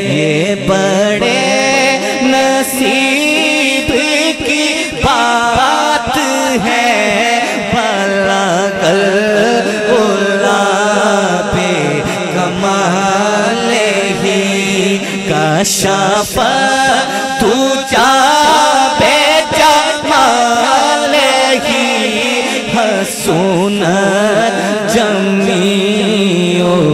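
Male voice singing a Punjabi naat into a microphone: long, melismatic held notes over a steady low drone.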